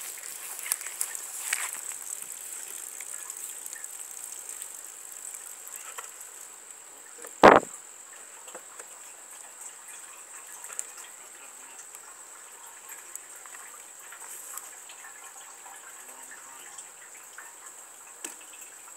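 Water gushing and trickling out of plastic jugs as they are handled, with a steady high insect drone throughout. A single loud thump comes a little before halfway through.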